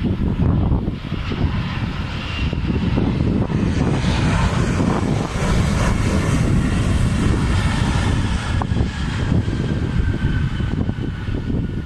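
Twin-engine jet airliner's engines running on the runway: a continuous rumble that builds a little after the start and holds, with a faint high whine in it later on.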